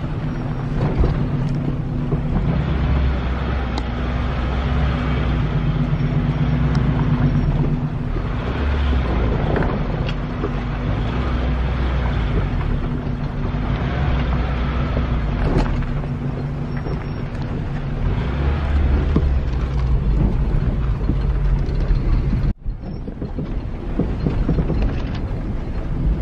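SUV engine running at low speed while its tyres crunch and rumble over a rocky dirt track, with wind buffeting the microphone held out of the window. The sound drops out abruptly for a moment about three-quarters of the way through.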